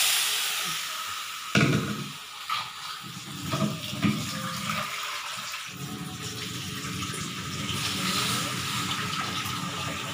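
A few knocks as ground chili is tipped from a plastic bowl into a wok, then water poured steadily into the wok over the sliced beef from about six seconds in.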